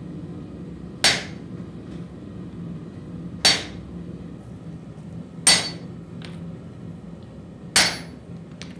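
A hand hammer striking a wooden-handled chisel held on a hot axe blade: four sharp metal-on-metal blows about two seconds apart, each ringing briefly, as the chisel cuts excess steel off the forge-welded blade.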